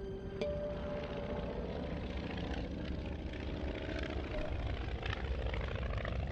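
Propeller biplane's piston engine running steadily in flight, a dense even drone with a fine rapid pulse. A held music chord cuts off about half a second in.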